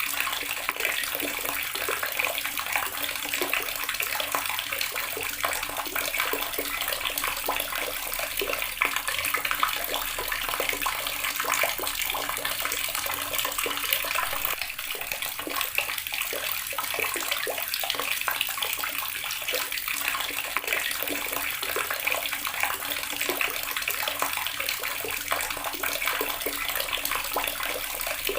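Water running steadily from a tap and splashing into a basin or tub below, a continuous dense splashing rush.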